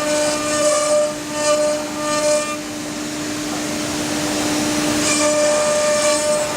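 Wood CNC router spindle running with a steady high whine, the sound turning harsher in several short spells and smoother for a couple of seconds in the middle.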